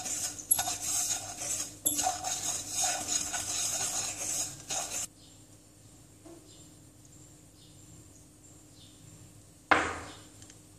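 A spatula stirring and scraping a dry granular mixture around a non-stick pan in quick, continuous strokes, stopping about five seconds in. Near the end comes one sudden loud knock that fades away.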